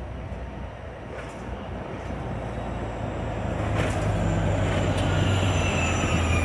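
Hybrid-electric city bus approaching and driving past close by, its running growing louder as it nears. From about five seconds in, a high whine slowly falls in pitch as it goes by.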